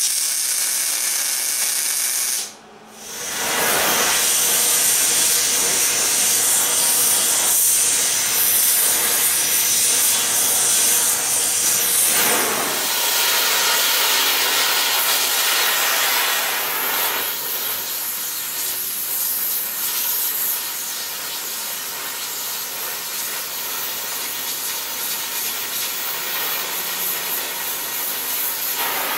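Primeweld TIG 225X welding arc hissing steadily as a steel cylinder is TIG-welded to a plate. It drops out briefly about two and a half seconds in, then runs on.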